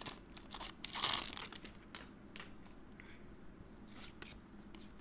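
Foil booster-pack wrapper crinkling and tearing as it is opened and the cards are slid out: a few short crackles, loudest about a second in.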